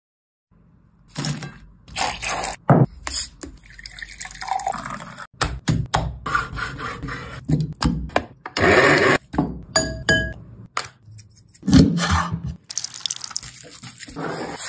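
A quick run of short kitchen food-preparation sounds, edited together: knocks, taps and handling noises, with wet, splashy moments.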